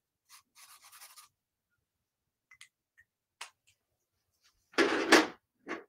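Felt-tip marker drawing short strokes on sketchbook paper: a quick run of faint scratches in the first second, then a few faint ticks. About five seconds in there is a louder, brief rush of noise.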